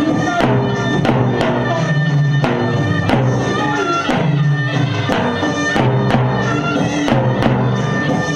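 Loud instrumental traditional dance music: a melody line over a steady drum beat of about two beats a second.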